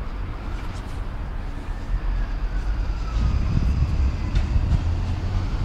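Class 70 diesel-electric locomotive with its V16 diesel engine running as it approaches light engine, a low rumble growing louder about three seconds in, with a faint high whine gliding slightly downward and a few sharp clicks.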